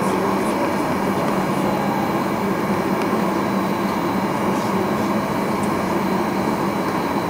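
Steady cabin drone inside a Boeing 737-800 taxiing, its engines at low power, with a constant low hum and air hiss and a few faint ticks.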